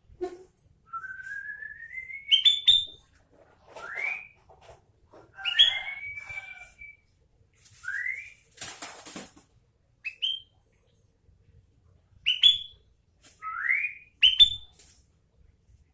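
Sooty-headed bulbul (kutilang) calling: a string of short, rising whistled notes with one longer, slowly rising whistle near the start. There is a brief noisy burst about nine seconds in.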